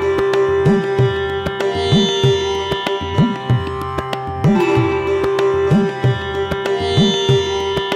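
Instrumental Indian classical-style music: plucked strings over a steady drone, with a deep drum stroke that swoops up in pitch about once a second.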